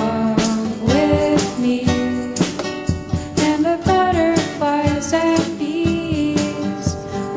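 Background music: a song with guitar and a sung melody.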